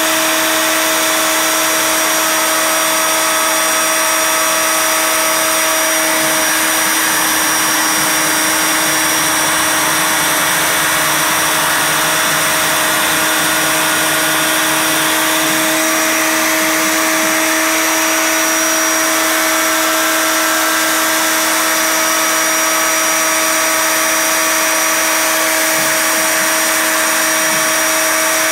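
CNC router spindle running at fairly low speed with a single-flute 1/8-inch high-helix end mill cutting 1/4-inch black ABS sheet: a steady whine over a constant hiss of cutting.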